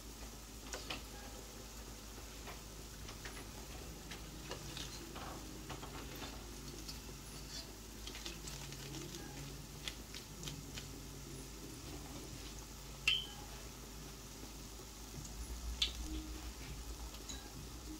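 Pholourie fritters deep-frying in a pot of hot oil: a steady sizzle with scattered small pops and crackles, and one sharp click about thirteen seconds in.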